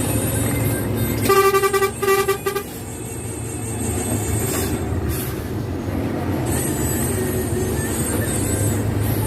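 Bus horn sounding on one pitch: a held blast about a second in, then two short toots, over the steady drone of the bus's engine and road noise.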